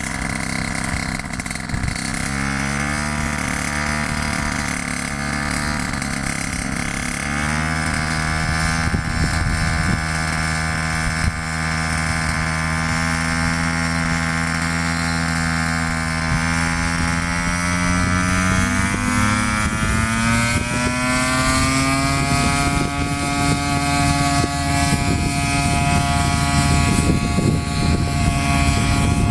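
Powered hang glider's propeller engine running steadily, stepping up in speed twice in the first several seconds, then revving smoothly higher past the midpoint and holding at high power for the takeoff run.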